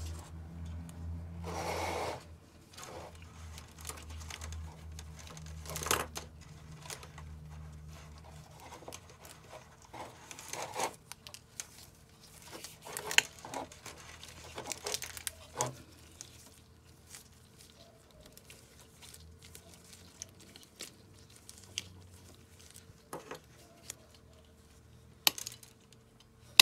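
Gloved hands sorting through a bundle of insulated power-supply wires, with scattered rustling, clicks and taps as the wires and the metal case are handled.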